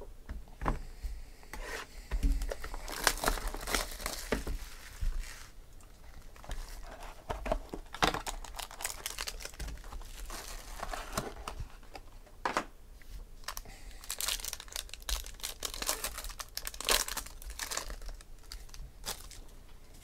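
Plastic wrap and packaging of a 2015 Topps High Tek football card box being torn open and crinkled by hand. It comes in three irregular spells of rustling, with small clicks and knocks as the box is handled.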